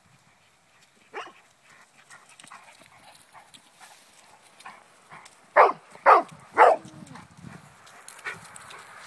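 Dogs playing with a dog barking: one faint bark about a second in, then three loud barks in quick succession just past the middle.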